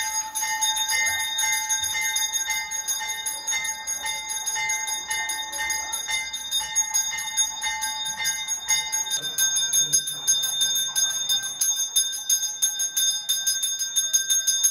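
Bells ringing rapidly and without a break, several ringing tones at once, as at the height of a Hindu temple pooja; about nine seconds in one of the tones stops while the rest ring on, and the ringing cuts off suddenly at the end.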